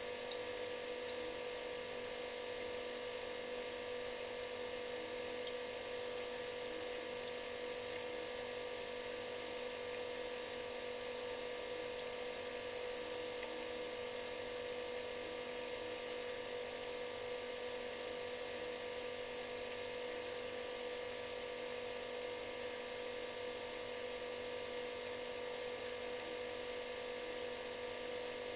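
Refrigerator running: a steady electric hum or buzz with a prominent pitched drone and a faint hiss, unchanging throughout.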